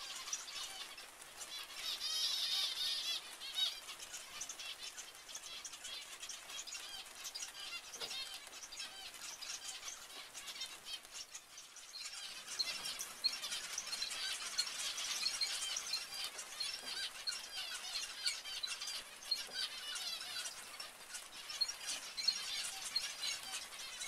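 A flock of zebra finches calling: a constant chatter of short, high chirps from many birds at once, busier and louder in the second half.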